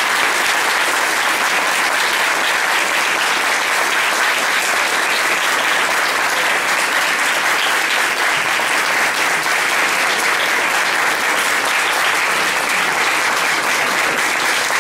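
Audience applauding steadily after a speech.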